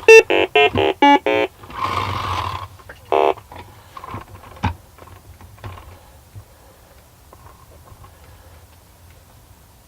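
Milton Bradley Big Trak's electronic keypad beeping, about five short beeps in quick succession, a brief burst of noise, then one more beep. Light clicks and knocks follow, and the sound fades to a low background.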